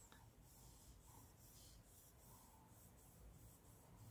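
Near silence, with faint, soft scratching of a paintbrush stroking back and forth over cloth.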